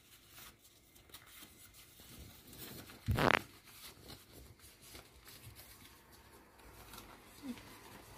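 Hands folding a large ebieba wrapping leaf, the leaf faintly rustling and crinkling, with one louder short crackle about three seconds in.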